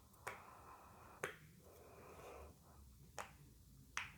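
Octopus fidget toy being pressed with the fingers, giving four sharp little pops at uneven intervals.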